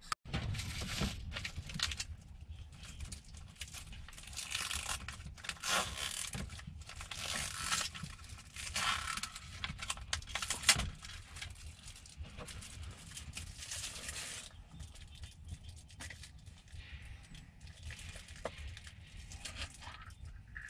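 Plastic film being peeled and torn off an instant-rice tray, with packaging crinkling and rustling, over a low steady hum. A single sharp knock comes a little past halfway, and the rustling thins out over the last few seconds.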